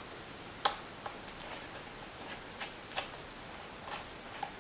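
Small Phillips screwdriver removing the screws from a laptop's screen bezel: about half a dozen small, sharp metal-on-plastic clicks at irregular intervals, the loudest under a second in.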